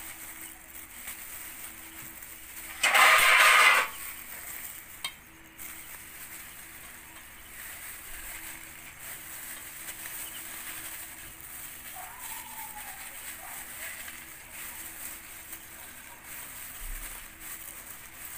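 Quiet handling as lemon halves are squeezed by hand in plastic gloves over a steel bowl. About three seconds in there is one loud noisy burst lasting about a second, and a short click follows a couple of seconds later.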